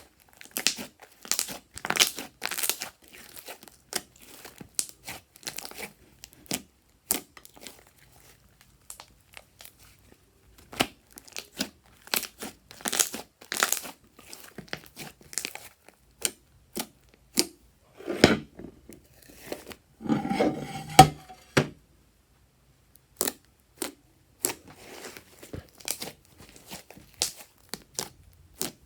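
Slime being squeezed, stretched and poked by hand, making an irregular run of sticky clicks and crackling pops, with a denser squelchy stretch and a brief squeak about twenty seconds in.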